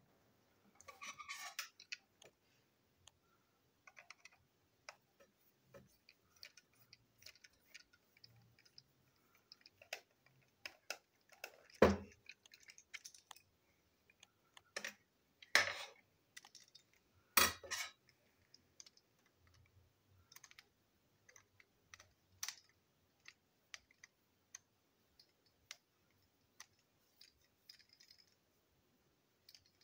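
Irregular small plastic clicks, taps and rattles as a motorised toy train engine is taken apart by hand with a screwdriver, its body shell lifted off and the wheeled chassis pulled out. A few louder knocks stand out near the middle.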